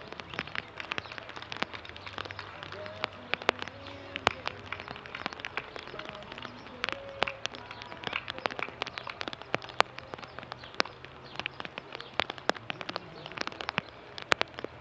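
Rain pattering in many irregular, sharp drops, with faint voices in the background.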